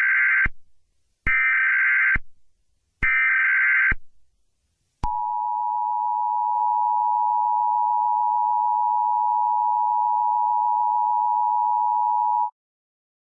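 Emergency Alert System SAME header: a run of roughly one-second bursts of warbling data screech, about a second apart. These are followed by the EAS attention signal, a steady two-tone hum of 853 and 960 Hz held for about seven and a half seconds, which cuts off abruptly.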